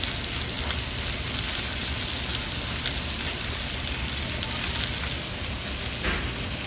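Airline chicken breasts frying skin-side down in a hot stainless steel sauté pan over a gas flame: a steady sizzle, the skin searing and browning in the hot fat.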